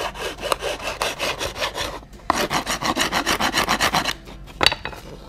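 Flat metal hand file rasping back and forth over a hardened instant-noodle-and-superglue patch on a clock case rim, levelling the repair. The quick strokes pause briefly about two seconds in, resume faster, and stop about four seconds in, followed by a single sharp tap near the end.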